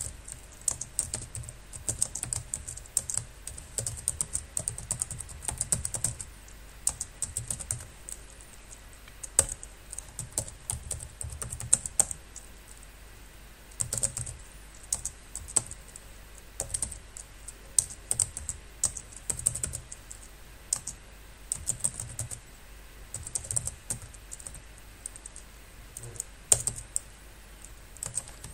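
Computer keyboard typing: quick runs of key clicks in irregular bursts, broken by short pauses.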